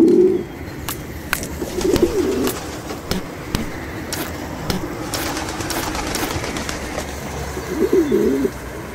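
Feral rock pigeons cooing: a call at the start, another about two seconds in and another near the end, over the steady noise of passing car traffic.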